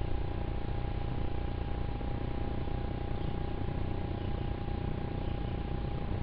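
Steady rumble of distant jet aircraft, the Blue Angels' F/A-18 Hornets flying out of sight behind the trees.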